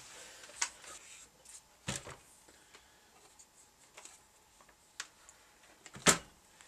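A few scattered clicks and knocks of hands on a Realistic DX160 communications receiver as its switches are worked to switch it on. The loudest is a sharp knock about six seconds in, with a softer thud just before two seconds.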